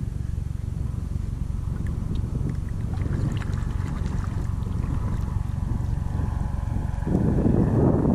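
Wind on the microphone and water slapping on a sea kayak out on open ocean, a steady low rush with a few small splashes; about seven seconds in it swells into a louder rush.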